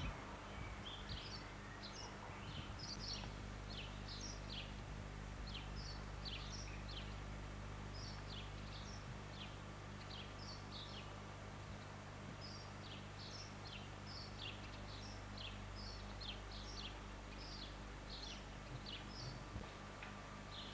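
Birds chirping over and over, a few short high chirps a second with a brief pause around the middle, over a steady low hum.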